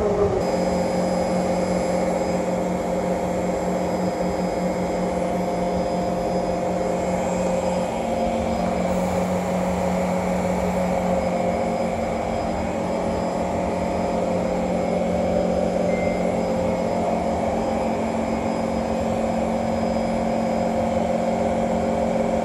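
Steady hum of a Kawasaki C151 MRT train heard from inside, several held tones over an even hiss, with one more tone joining about eight seconds in.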